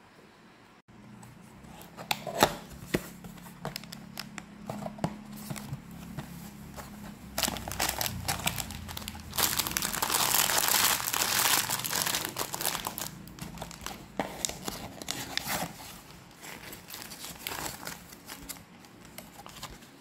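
Plastic bag of tiny building bricks crinkling and crackling as it is handled, with scattered clicks and rustles of the cardboard box being opened; the crinkling is densest and loudest about halfway through, then eases off while the paper instruction sheet is spread out near the end.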